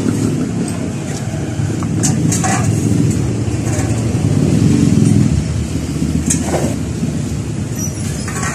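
Steady low rumble of background vehicle noise, with a few brief sharp clicks about two seconds in and again past six seconds.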